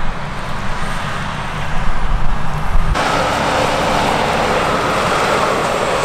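New Holland CR10.90 combine harvesters running in a canola field: first a deep, uneven engine rumble of combines moving close by. About halfway it changes abruptly to a steady hiss with a faint hum as a combine harvests.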